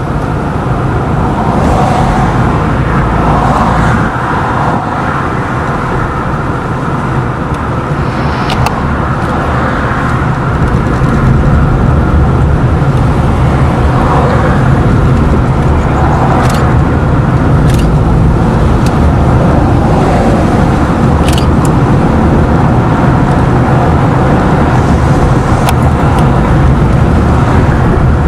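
A car driving along a road: steady engine and tyre noise heard from the moving vehicle, growing louder about eleven seconds in, with a few brief sharp clicks.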